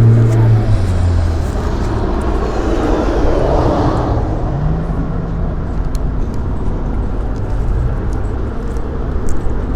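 Road traffic: a vehicle's engine hum fades away at the start, then another vehicle passes, swelling to its loudest about three to four seconds in, over a steady low rumble of traffic.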